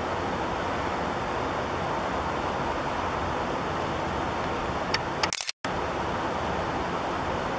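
Steady hiss of outdoor background noise, with a few sharp clicks just before five seconds in and the sound cutting out for a moment right after them.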